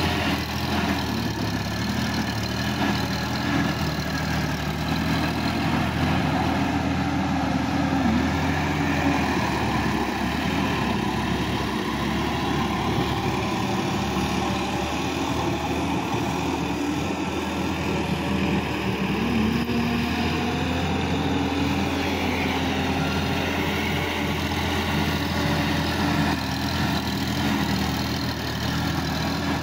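Sonalika DI-50 RX tractor's diesel engine running steadily under load as it drags a tilling implement through a flooded paddy field, its pitch bending slightly now and then.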